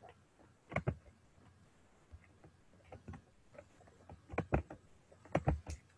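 Scattered clicks and taps from a computer keyboard, a few keystrokes at a time with short pauses between, with a cluster near the end.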